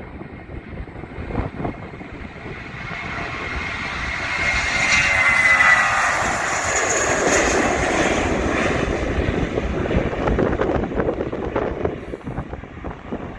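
Airbus A320 jet engines passing by on departure. The noise swells to its loudest about five or six seconds in, with a whine that falls in pitch as the aircraft goes past, then a steady rumble that slowly fades.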